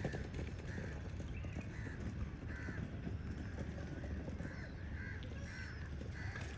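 A bird calling over and over in short, evenly pitched calls, about ten of them, over a steady low rumble.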